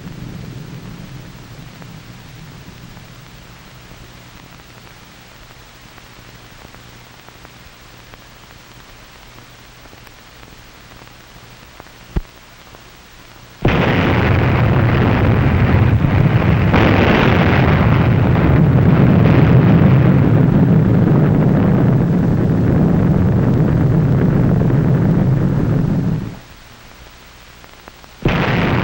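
Explosion roar on an old film soundtrack, standing for the atomic bomb blast. It starts suddenly about halfway in, runs for about twelve seconds, cuts off abruptly and starts again just before the end. Before it there is only a faint fading hiss and one click.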